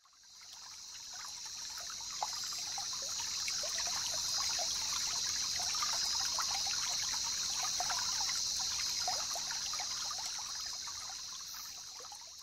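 Water trickling and bubbling: a steady hiss with many small scattered pops. It fades in over the first few seconds and fades out near the end.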